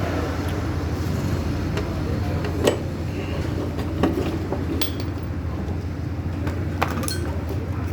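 A few sharp metal clinks and knocks of hand tools and parts on a motorcycle front fork being taken apart, over a steady low hum.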